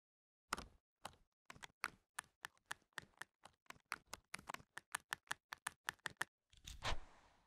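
Intro sound effect of sharp clicks, at first spaced out, then coming faster, about two dozen in all, ending in a longer, louder burst near the end.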